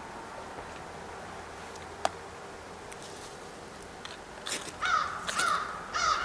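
A crow cawing, a quick run of harsh caws starting about four and a half seconds in. A single sharp click comes about two seconds in.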